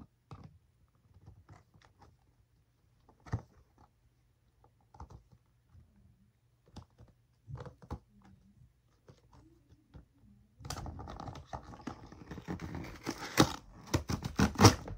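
A toy box being opened by hand: scattered light clicks and taps, then from about eleven seconds in, a dense crackling and tearing as the packaging is ripped apart.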